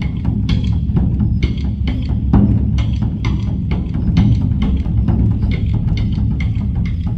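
Background music with a steady drum beat of about two beats a second over a heavy bass.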